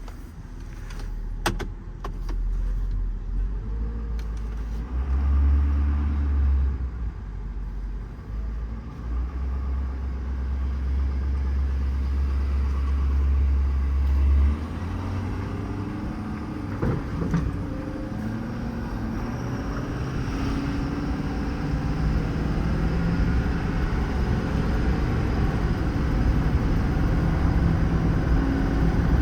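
Ford F-550's 6.7 L Power Stroke diesel engine running as the truck gets under way, its note changing pitch in steps as it accelerates and the automatic shifts. There are a few clicks about a second and a half in.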